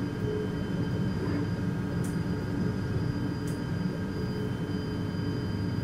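S-Bahn electric train running, heard from inside the carriage: a steady rumble with a steady hum. Two faint clicks come at about two and three and a half seconds in.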